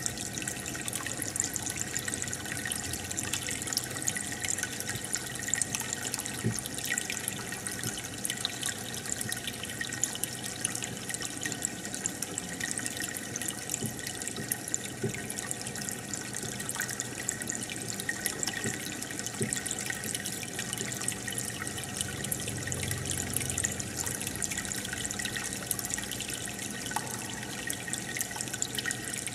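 Aquarium water trickling and bubbling steadily, with many small splashing crackles and a faint steady hum beneath.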